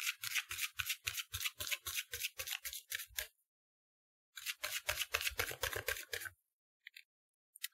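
Tarot deck being shuffled by hand: a rapid, even run of papery card strokes, about five a second, that pauses for about a second partway through and then starts again.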